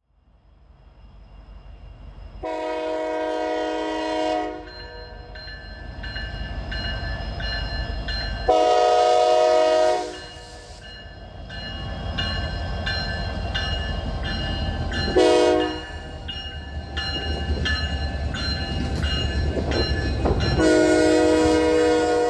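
Horn of Norfolk Southern 911, an EMD SD70ACe diesel locomotive, sounding the grade-crossing signal: long, long, short, long, the last blast still sounding at the end. Under it the diesel rumble of the approaching train builds, and a bell rings steadily between blasts.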